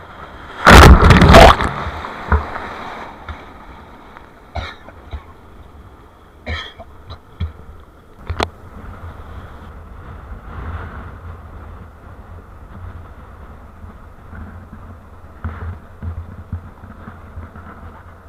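Strong wind buffeting an action camera's microphone at the water's edge. About a second in there is a loud double rush, then scattered sharp knocks and clicks.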